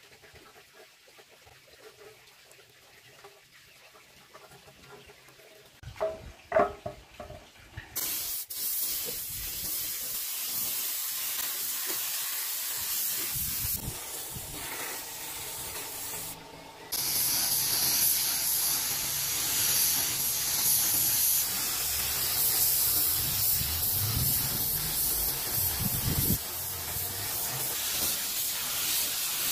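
A steady spraying hiss that starts about eight seconds in, breaks off for a moment halfway through and comes back louder and brighter. A few light clinks come just before it.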